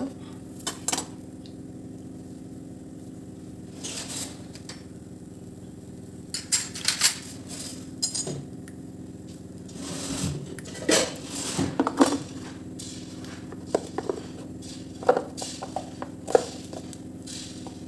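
Kitchen utensils and cookware clinking and knocking at irregular moments, over a steady low hum.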